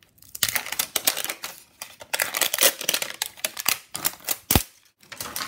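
Crinkly plastic wrapping being peeled off an L.O.L. Surprise toy ball: a dense run of crackling that starts about half a second in, with one sharp click shortly before it stops near the end.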